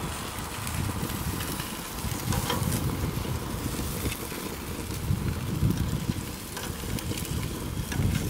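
Baby back ribs sizzling on a gas grill's grates, with a few light clicks of metal tongs against the meat and grate, over a low, uneven rumble.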